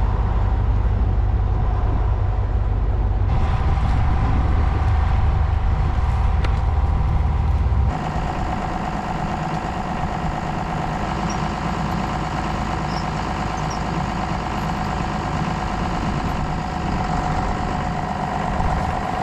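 A vehicle engine running steadily with a deep low rumble. The sound changes abruptly about three seconds in and again about eight seconds in, the low rumble dropping after the second change.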